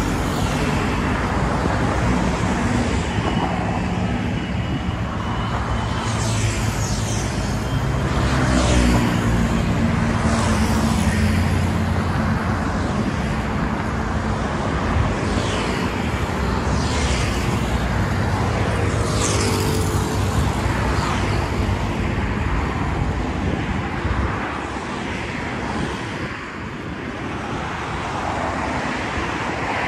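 Busy city street traffic: engines running steadily close by, with several vehicles passing one after another.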